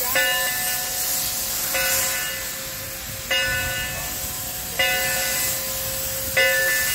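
Steam locomotive bell ringing at a slow, steady rhythm, five strokes about a second and a half apart, each ringing on. A steady hiss of steam runs underneath.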